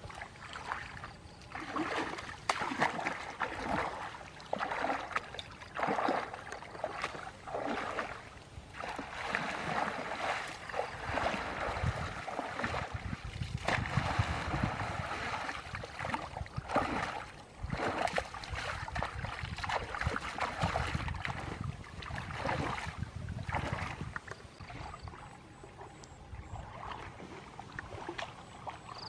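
Shallow muddy water splashing and sloshing in irregular bursts as hands grope and churn through it.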